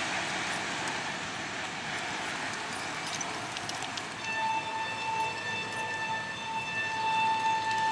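A freight train's wagons rumbling as they run away into the distance, fading. About four seconds in, a train horn starts sounding, one steady pitch in a run of short and longer blasts.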